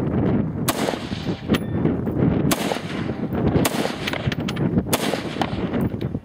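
Slow, deliberate single shots from a 5.56 mm AR-15 rifle, about one every second or so, five or six in all, each a sharp crack with a short ringing tail.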